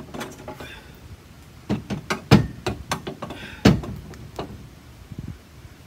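Knocks and clunks from handling metal hardware while taking the trailer jack off its mount: a run of small clicks and knocks, with two louder clunks a little over two and about three and a half seconds in.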